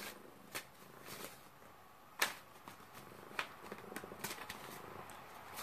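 A tarot deck shuffled by hand: soft rustling of the cards with a few light clicks, the sharpest about two seconds in.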